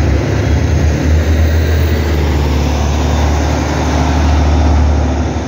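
Articulated city bus driving past close by: a low, steady engine rumble with road noise, growing loudest about four to five seconds in.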